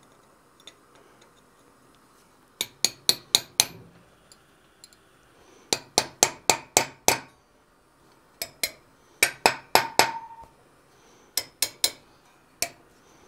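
Hammer blows on a steel drift being driven into the hot end of a forged key blank held in a vise, opening out the key's socket. The strikes are sharp and ringing, in quick runs of three to six with short pauses between.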